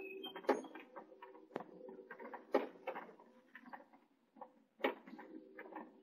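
Close-up scratching and rustling of a house finch parent shifting in its twig nest, with irregular sharp clicks about once a second, over a low steady hum.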